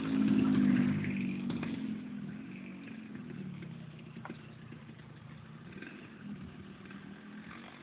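Radio-controlled Cessna 206 model plane flying past, its motor and propeller making a steady hum. The hum is loudest about half a second in and then fades as the plane moves away.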